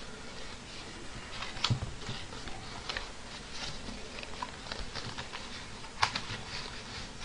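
Plastic takeout containers being handled on a table: light clicking, tapping and rustling, with a sharper knock about a second and a half in and a louder one about six seconds in.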